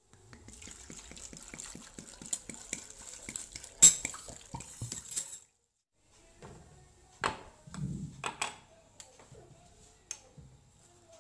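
Water poured into a stainless steel saucepan of cut green beans, splashing for about five seconds. After a short gap, a few clinks and a soft thud as a salt dish and spoon are set beside the pan, then a spoon scraping salt from the dish.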